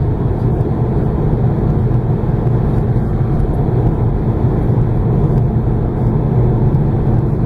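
Car driving at highway speed: a steady low rumble of tyre, road and engine noise.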